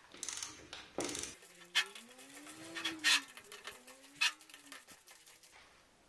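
Socket ratchet wrench clicking rapidly as it turns the stator bolts of a refrigerator compressor, with a few sharp metal knocks. A squeak rises and falls in pitch twice, from about a second and a half in.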